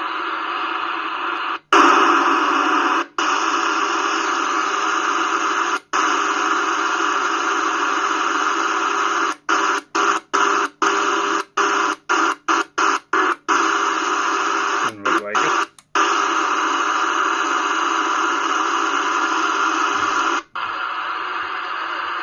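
CB radio receiver hiss and static from the set's speaker, with no signal coming through, broken by short sudden gaps: a few scattered ones and a quick run of about ten between about nine and fourteen seconds in.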